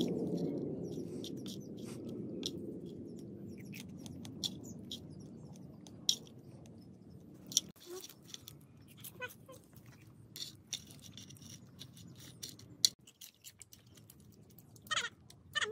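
A person chewing crunchy food, with scattered sharp clicks and crunches. A low rushing noise at the start fades away over the first several seconds.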